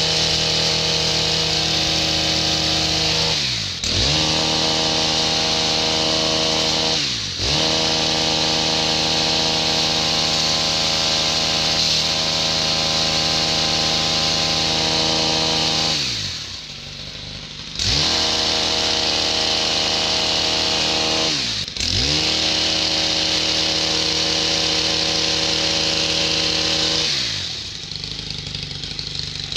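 Stihl KM 131 R KombiEngine, a small 4-MIX engine, driving an HL-KM 145° long-reach hedge trimmer attachment as it trims a hedge at high revs. The throttle is released and squeezed again five times. Three are quick dips in revs. Two are longer drops toward idle, one around the middle and one near the end, before the engine revs back up.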